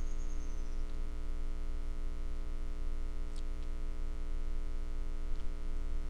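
Steady electrical hum, with two faint small ticks partway through.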